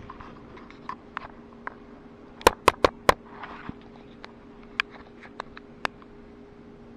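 Light clicks and taps of handling noise on a helmet-mounted external mic, with a quick run of four sharp clicks about two and a half seconds in, over a faint steady hum. The scooter's engine is not running.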